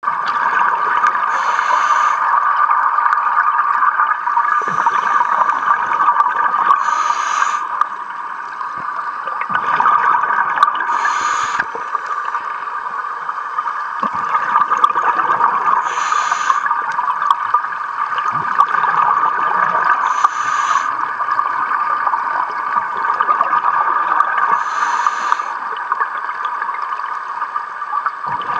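Scuba diver breathing through a regulator underwater: a short burst of exhaled bubbles every four to five seconds over a steady hiss.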